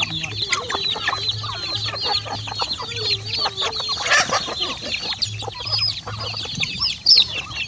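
A flock of chickens feeding at close range: young chicks peeping in a constant stream of short high cheeps, mixed with lower clucking from the adult hens.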